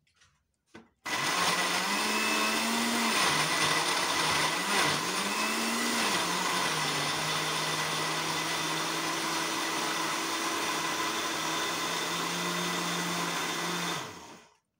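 Countertop jug blender switched on about a second in, blending a thick fruit-and-yogurt smoothie. Its motor hum dips in pitch twice in the first five seconds as the mix loads it, then runs steady, and winds down in pitch when it is switched off near the end.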